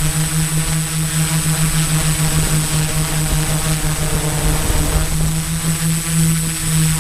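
680 mm hexacopter's six motors and propellers running in flight, a steady buzzing hum that wavers and shifts briefly about four seconds in before settling again. Wind rumbles on the microphone underneath.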